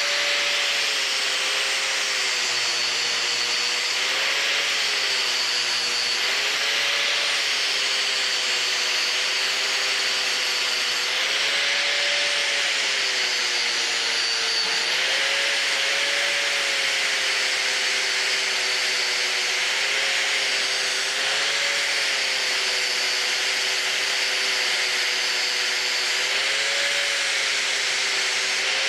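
Bosch Professional angle grinder with a flap disc grinding a metal bar to smooth it, its motor whine wavering up and down in pitch over a steady grinding hiss.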